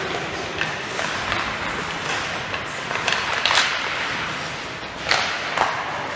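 Ice hockey play in a rink: skate blades scraping and carving the ice, with several sharp knocks and clacks of sticks and puck, the loudest scrapes about three and a half and five seconds in.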